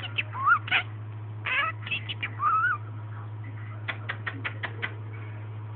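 Budgerigar chattering: short warbled chirps and whistled rising-and-falling notes, then a quick run of about seven sharp clicks a second later. A steady low hum runs underneath.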